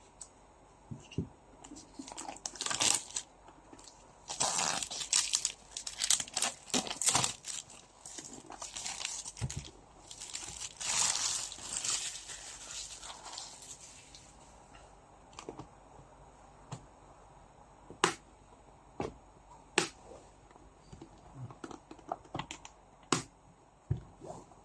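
Packaging of a trading-card box being torn open and crinkled, in dense crackly bursts for about twelve seconds. After that come a few scattered light clicks and taps as the contents are handled.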